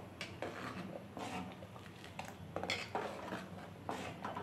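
Metal ladle stirring moong dal soup in an aluminium kadai, with irregular scrapes and light clinks of the ladle against the pan and the soft slosh of the liquid.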